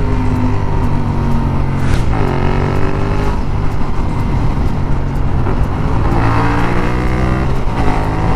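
Yamaha MT-07's parallel-twin engine pulling under way, its revs climbing and dropping back twice, over wind and road noise.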